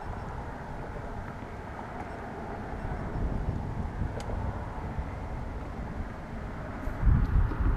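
Wind on the microphone outdoors: a steady rumble and hiss, with heavier buffeting from about seven seconds in.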